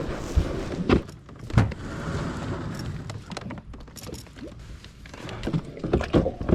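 A series of knocks and light clatter, about four in the first second and a half and several more near the end, with a rustling stretch in between.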